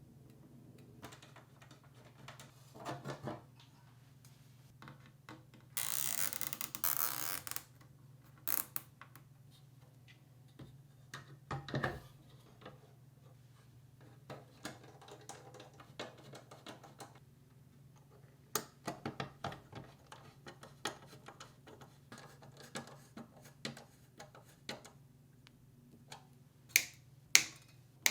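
Hands handling and fitting small PC parts: scattered light clicks and taps, with a longer rustling scrape about six seconds in and another brief one near twelve seconds, over a steady low hum.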